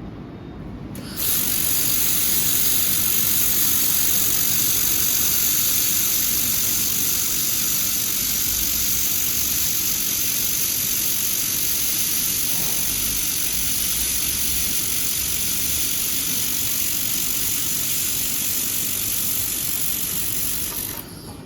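Handheld laser welder in use with argon shielding gas: a loud, steady hiss that starts suddenly about a second in and cuts off sharply near the end.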